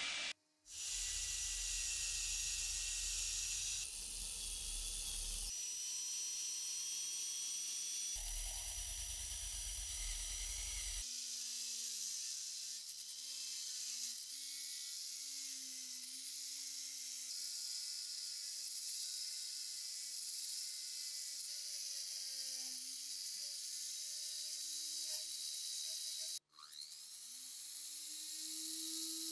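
Wire brushes scouring rust off steel. First a spinning wire wheel runs with a low rumble and hiss. About eleven seconds in, a high-speed rotary tool takes over with a small brass wire brush, whining at a wavering pitch. The sound cuts out briefly near the start and again a few seconds before the end, and after the second cut the rotary tool's whine rises as it spins back up.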